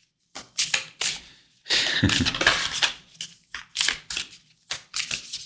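Tarot cards being shuffled and handled: a string of crisp snaps and short riffles, with a longer riffle about two seconds in.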